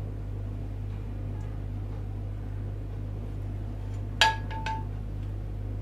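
A frying pan's rim clinking sharply against a ceramic plate about four seconds in, with a short ring, followed by two lighter taps, as an omelette is slid out of the pan onto the plate. A steady low hum runs underneath.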